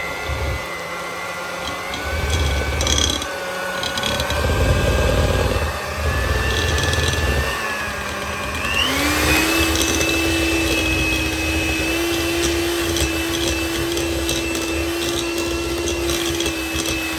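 Electric hand mixer running, its motor whining steadily as the beaters cream butter and sugar until fluffy. About nine seconds in, the whine rises in pitch as the motor speeds up and then holds steady.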